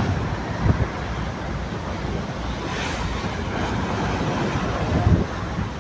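Sea wind buffeting the microphone over a steady rush of waves, with gusty thumps about a second in and again near the end.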